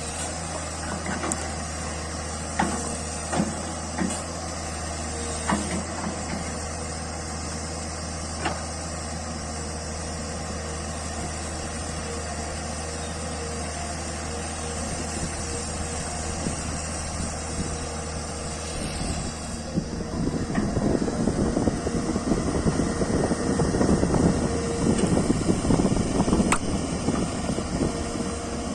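A JCB backhoe loader's diesel engine running steadily with a low hum, broken by a few sharp metallic knocks. About two-thirds of the way through, the sound turns louder and rougher, as if the engine is working under load.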